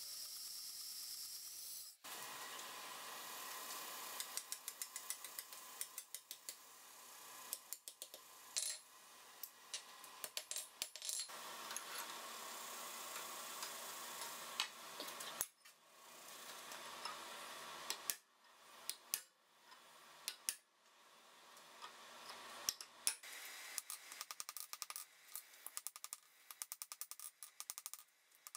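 A jigsaw cutting steel for about two seconds, then irregular metal-on-metal clinks and knocks as hot steel rod is worked. Near the end a hand hammer strikes the rod on an anvil in quick runs of ringing blows.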